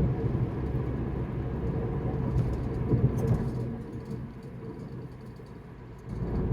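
Steady low rumble of a car driving, heard from inside the cabin. It eases off for a couple of seconds near the end, then rises again.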